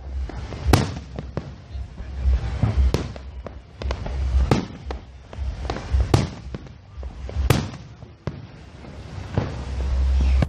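Aerial fireworks shells bursting in a string of sharp bangs, about one every second and a half, with smaller pops between them.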